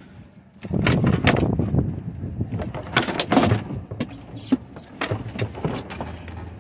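Full-size alloy spare wheel being lifted out of its trunk well: an irregular run of knocks, thumps and scraping as the tyre rubs and bumps against the surrounding trim, starting about a second in.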